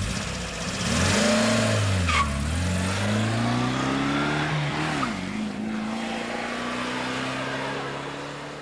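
Car engine accelerating through the gears: its pitch climbs, drops sharply twice at the shifts, about two and five seconds in, then rises slowly and fades near the end.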